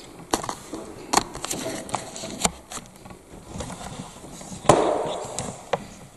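Irregular sharp clicks and knocks of footsteps over a littered floor, with one louder crunching step about three-quarters of the way through.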